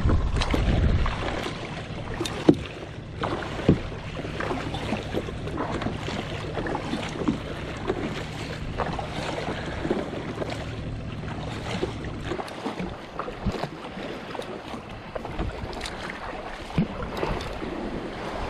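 Wind buffeting the microphone and sea water sloshing around a small plastic fishing kayak, with occasional sharp knocks. A low steady hum stops about two-thirds of the way through.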